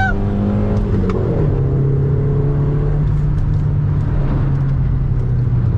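VW Saveiro pickup's engine heard from inside the cab while cornering on a bend. About a second in its pitch drops, then holds as a steady drone that sinks slowly.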